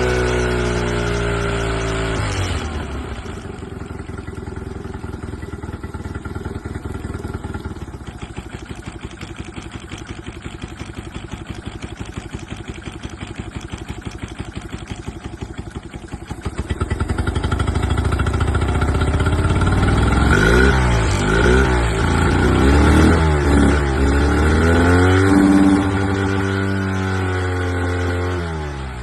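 Honda engine with a misfire: it settles from a faster speed to a pulsing idle about two seconds in, rises in speed after the middle, and is revved up and down several times before dropping back toward idle near the end.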